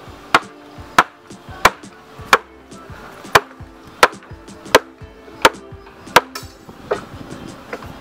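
Hammer blows on wooden concrete formwork: about ten sharp knocks at an even pace, roughly one and a half a second, with one short pause partway through.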